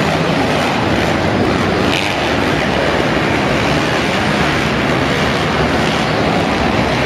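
Engines of several mini dirt bikes running as they ride around the dirt track, a steady, dense engine noise without pauses.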